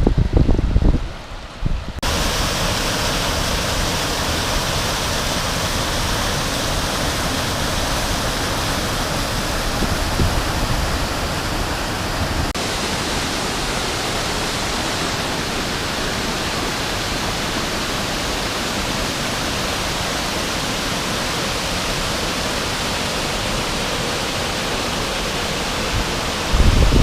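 Waterfall: a steady, even rush of falling water. It starts abruptly about two seconds in, after a short stretch of low wind rumble on the microphone.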